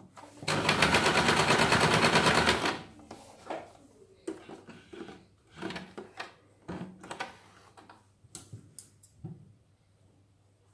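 Electric domestic sewing machine running fast for about two seconds, its needle stitching back and forth over the end of a buttonhole to make a bar tack, then stopping. Scattered light clicks and knocks of the cloth being handled follow.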